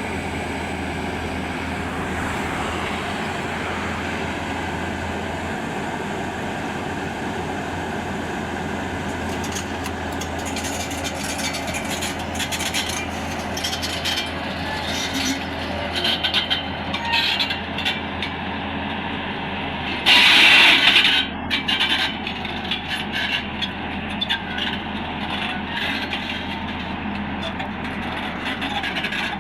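Excavator's diesel engine running with a steady drone. From about a third of the way in, irregular knocking and clattering come in, loudest in a short burst about two-thirds through.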